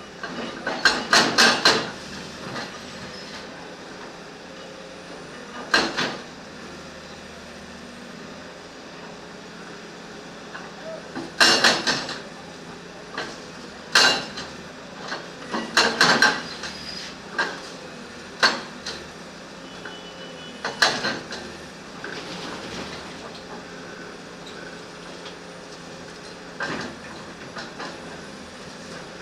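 Backhoe loader's engine running steadily, with sharp metallic clanks and bangs as the bucket works a steel rod out of the ground. The clanks come singly and in quick clusters, about eight times.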